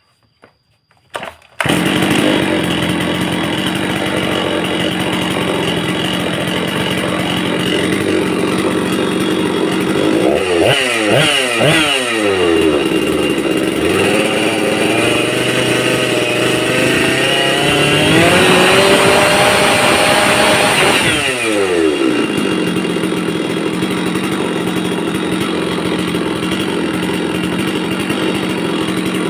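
Stihl 066 two-stroke chainsaw engine starting suddenly about two seconds in and idling steadily. It is revved up briefly, then revved up and held high for several seconds before dropping back to idle.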